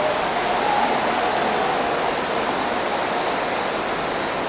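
Large audience applauding steadily in a hall, with faint crowd voices in it, greeting a conversion to Islam just completed.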